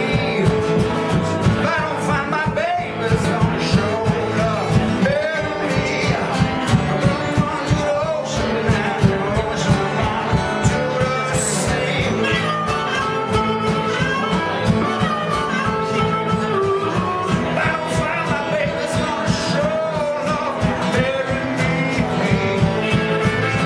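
Live acoustic string-band jam: several acoustic guitars strumming a steady rhythm, with a fiddle and singing over them.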